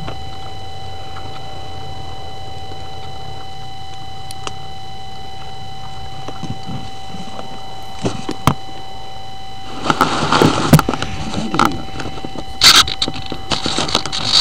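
Audio from the onboard camera of a foam RC model plane lying in grass: a steady thin electronic whine over a low rumble. From about ten seconds in come loud rustling and knocks as the model is picked up and handled.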